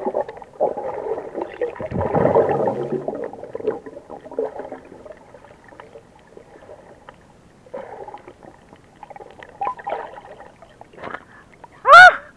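Muffled underwater sound picked up by a submerged camera: bubbling and rumbling water, densest in the first few seconds, then sparser knocks and rustles. Near the end there is a loud, brief rush of air and water as the camera comes up to the surface.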